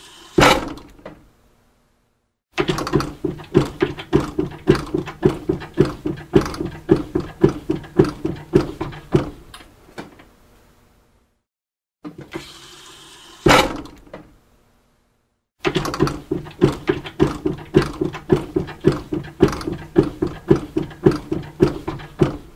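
Hydraulic barber chair working: twice, a short hiss ends in a sharp thunk. After a short pause the lifting mechanism is pumped in a long run of even strokes, about two a second, each with a low creak.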